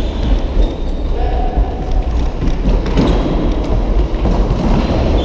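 Indoor futsal game in play: scattered thuds of the ball and feet on the court over a steady low rumble, with a couple of short squeaks.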